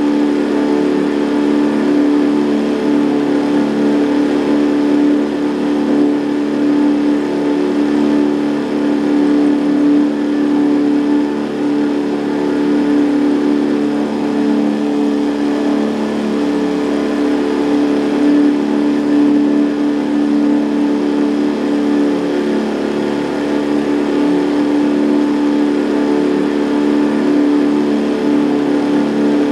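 Outboard motor driving a boat at a steady speed, a constant hum whose pitch and level hold even.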